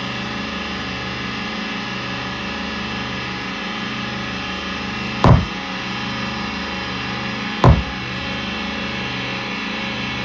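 Live improvised band music: a sustained drone of many held tones with a slow, even pulse underneath, cut by two sharp drum strikes about five and seven and a half seconds in.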